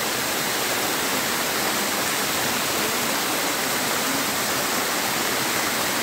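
Small waterfall cascading over rocks into a forest stream: a steady rush of falling water.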